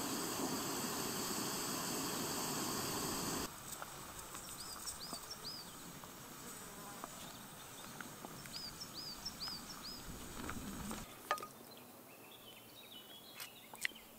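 Portable gas canister stove burning steadily under a pot of boiling water, a hiss that cuts off about three and a half seconds in. Then quiet open-air ambience with short high chirps, a run of three and then a run of four, and a few light clicks near the end.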